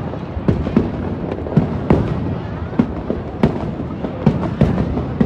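Aerial fireworks display: sharp bangs of shells bursting at irregular intervals, a few a second, over a continuous wash of smaller bursts.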